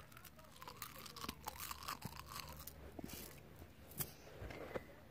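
Soft, irregular crunching and crackling made close to the microphone: a run of small clicks, with a sharper click about four seconds in.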